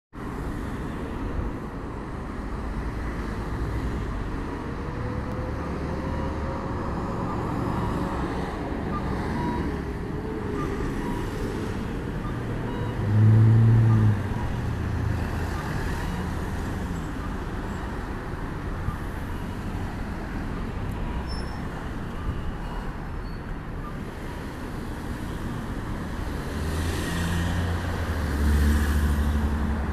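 Road traffic at an intersection: city buses and cars passing, with a steady low rumble of engines and tyres. A loud low hum lasts about a second halfway through, and a bus engine runs close and louder near the end.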